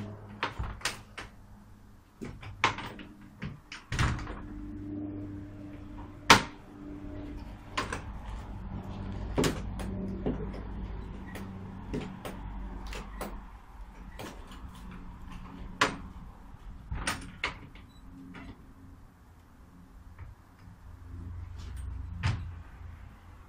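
Wooden garden gate being swung open and shut against its new post, with its ring-handled latch worked. It gives irregular wooden knocks and clacks, the loudest about six seconds in.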